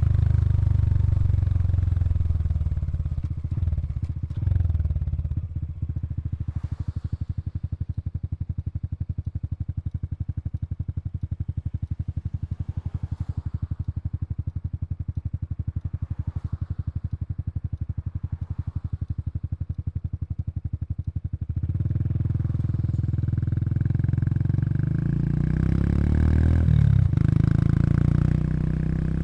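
Honda Super Cub 110 Pro's single-cylinder four-stroke engine heard at its exhaust. It runs above idle for the first few seconds, settles into a steady, evenly pulsing idle, then picks up again after about twenty seconds, with the pitch rising and falling near the end.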